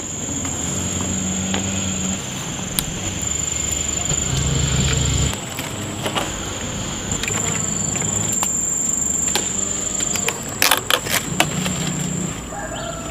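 A small motor running at changing speed, under a steady high-pitched whine. A few sharp clicks come near the end.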